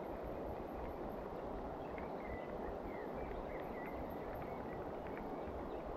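Steady outdoor rushing of rain and river water, with a few faint high bird chirps about two to three seconds in.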